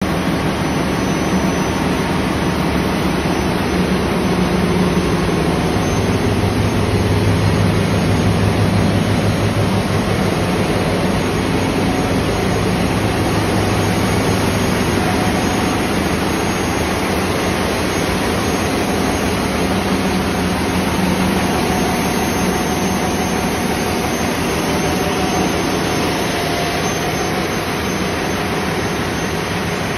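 Yanmar marine diesel generator sets running steadily in a ship's engine room: a loud, continuous engine drone with a low hum underneath.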